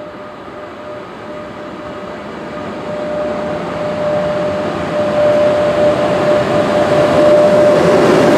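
VR Sr1 electric locomotive approaching and growing steadily louder, its steady whining tone rising above a swelling rumble of wheels on rail.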